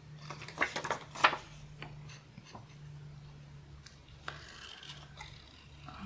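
Scissors cutting printed paper card: a quick run of snips in the first second and a half, then a few scattered cuts, over a faint steady low hum.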